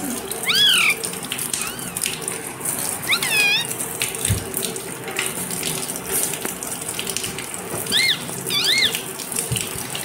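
Parakeet giving short, high chirps that glide up and down in pitch: one about half a second in, a quick run of several around three seconds in, and two more near the end. A steady rushing noise like running water sounds behind them.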